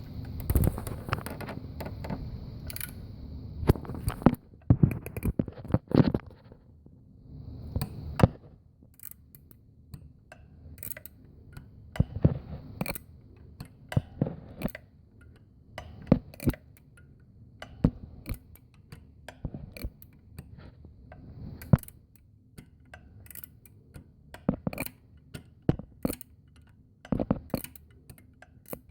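Hand ratchet wrench clicking and clinking against metal in short, irregular strokes, about one sharp click every second or so, as it is worked back and forth on an alternator bolt.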